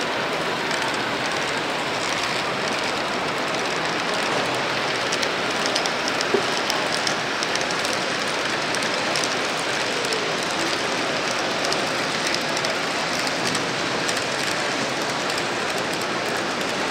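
Model freight train of refrigerator cars rolling along the layout track: a steady rolling noise of small wheels on rail with faint clicking, mixed with the background noise of a crowded hall.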